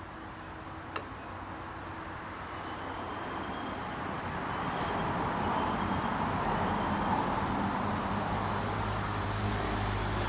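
Road traffic: a vehicle's engine and tyre noise growing steadily louder over several seconds as it approaches. A single sharp tap sounds about a second in.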